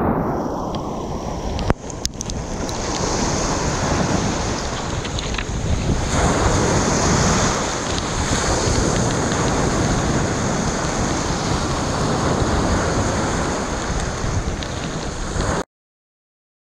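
Surf breaking and foaming around a small dinghy at the water's edge, with strong wind buffeting the microphone. A single sharp knock comes about two seconds in, and the sound cuts off abruptly to silence near the end.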